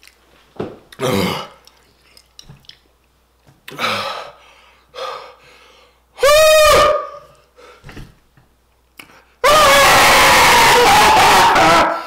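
A man's pained vocal reactions to very spicy food: short grunts and groans, a loud pitched cry about six seconds in, then a long, very loud, strained yell for the last two and a half seconds.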